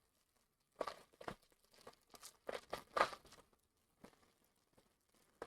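Plastic packaging crinkling and rustling in short, irregular bursts as diamond painting kit bags are handled.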